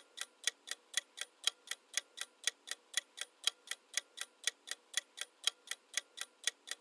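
Clock ticking sound effect of a countdown timer, steady sharp ticks at about four a second.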